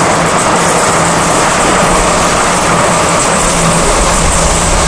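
Sydney Trains double-deck electric suburban train running past: a loud, steady rumble of wheels on rail with a steady low hum, the deep rumble growing stronger about halfway through.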